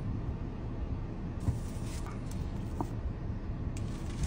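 Low steady rumble of a car's engine idling, heard from inside the cabin, with short hissy rustles about a second and a half in and again near the end.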